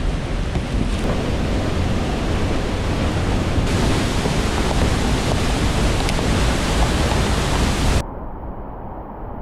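Steady rushing of a 10-metre waterfall pouring into its pool. About eight seconds in it cuts off suddenly to a quieter, duller rush.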